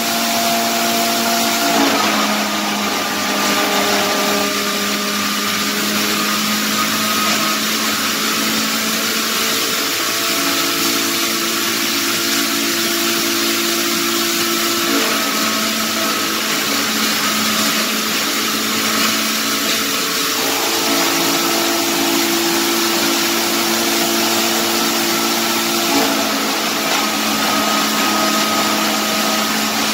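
A 7.5 kW three-phase electric hammer mill with its blower running, grinding wood chips to fine sawdust through a 3 mm screen. It makes a loud, steady rushing whine with several humming tones that shift slightly in pitch a few times.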